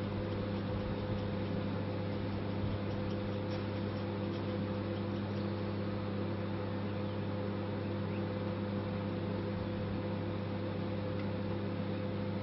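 Microwave oven running: a steady electrical hum and buzz with fan noise.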